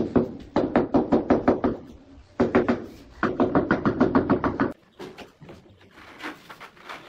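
Rapid tapping of a mallet on a large ceramic wall tile to bed it into the adhesive: bursts of about eight knocks a second that stop just before five seconds in, followed by a few fainter taps.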